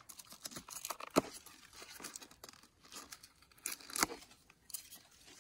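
Dry leaves and twigs rustling and crackling as the undergrowth around a fallen log is handled. Two sharper snaps stand out, about a second in and again near four seconds.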